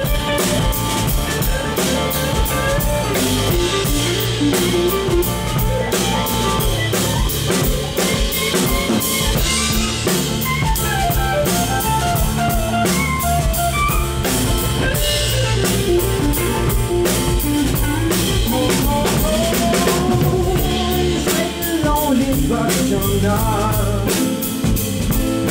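A live band playing an instrumental passage: a drum kit keeping a steady beat with rimshots under bass and guitar, with a winding melodic lead line on top.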